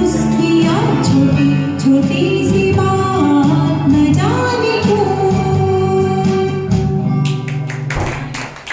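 Karaoke song music: a melody line of long held notes that slide upward into each note, over a steady accompaniment. The music drops away about eight seconds in, amid a few sharp clicks.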